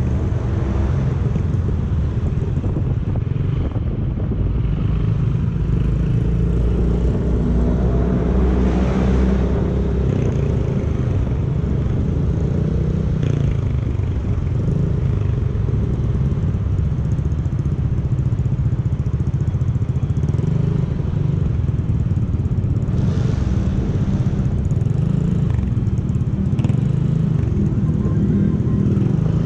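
Yamaha motor scooter's engine running steadily while riding in traffic, its note shifting a little with speed.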